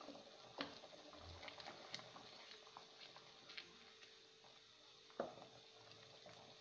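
Wooden spatula stirring soup in a pan, faint and quiet: light scraping and ticks, with two sharper knocks against the pan, under a second in and again about five seconds in, over the soft bubbling of the simmering soup.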